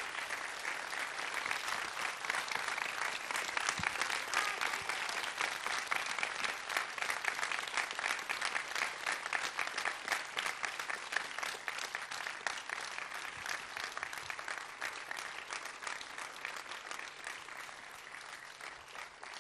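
Audience applauding: dense clapping that builds over the first several seconds, then slowly thins out and fades toward the end.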